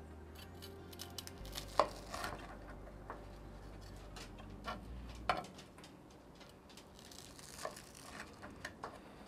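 Chef's knife cutting the crust off a toasted grilled cheese sandwich: the blade crunches through the crisp bread and knocks on a wooden cutting board in a few scattered strokes, the loudest about two seconds and five seconds in.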